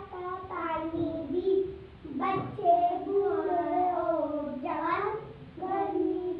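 Children singing in high voices, short held-note phrases one after another.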